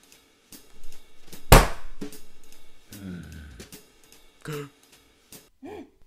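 Drum kit percussion: scattered hits, with a loud cymbal crash about a second and a half in, followed by a quick rattle of strokes.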